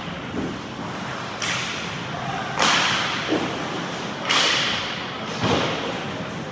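Ice hockey play: four sharp hits that echo around the rink, spaced one to two seconds apart.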